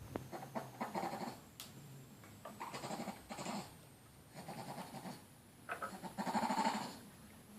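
An animal crying out repeatedly: a series of short, pitched cries with pauses between them. The longest and loudest cry comes near the end.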